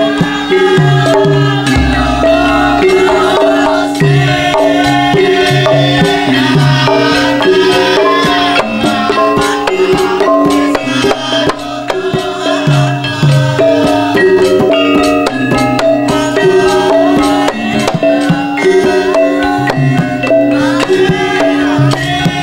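Javanese gamelan music for a Wonosobo lengger dance: steady hand-drum strokes under ringing metallophone notes that change step by step, with a sliding melody line above.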